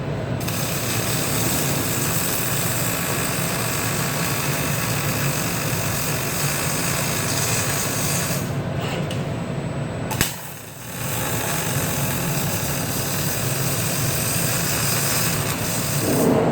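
Panasonic welding robot arc welding: a steady, even hiss of the welding arc. About ten seconds in it is cut by a sharp click and a short drop, then the arc noise starts again.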